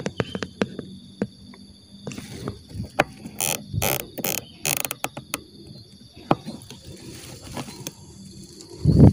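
Irregular clicking and light rustling from an air rifle and its scope camera being handled while aiming. There are four short hissing rustles about three and a half to five seconds in, and a loud low thump near the end.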